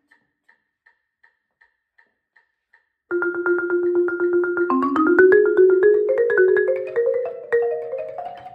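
Marimba played with yarn mallets. For about the first three seconds there are only faint, evenly spaced ticks, about three a second. Then rapid rolls set in on sustained notes an octave or more apart, stepping upward in pitch.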